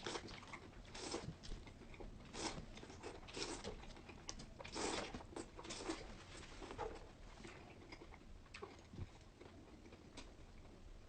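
A person eating close to the microphone: irregular bites and chewing noises. They come thick and fast for the first six seconds or so, then thin out to occasional single ones.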